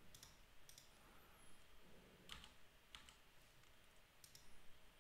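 Near silence broken by a few faint, scattered clicks of computer keys and a mouse.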